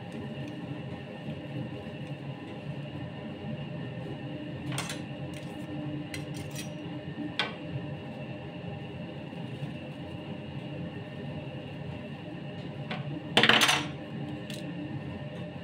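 Light clicks and taps from a plastic cake scraper and a cake turntable being handled, with a short, louder clatter near the end as something hard is set down, over a steady background hum.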